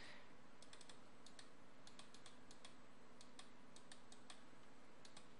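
Faint, irregular clicking at a computer, the light clicks of keys and mouse buttons, about twenty in quick clusters over a few seconds, over a low steady hum.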